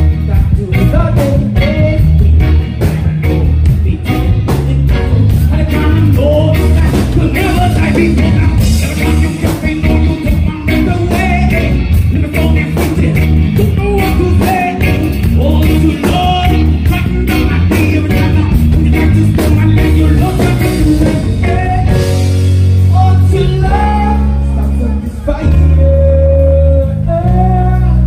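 A live band playing: electric guitars, bass guitar, drum kit and hand drums, with a steady beat and a heavy bass line.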